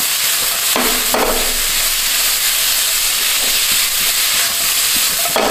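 Green beans and minced pork sizzling steadily in a hot wok on high heat, stir-fried with a spatula that strokes across the pan twice about a second in and once more near the end.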